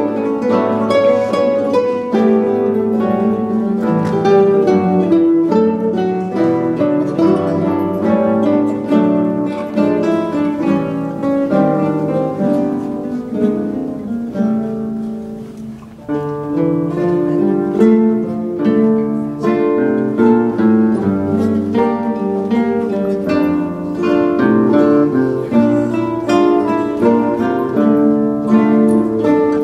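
A large classical guitar ensemble playing, many nylon-string guitars plucking notes together in an arranged piece. The playing thins to a short lull about fifteen seconds in, then picks up again.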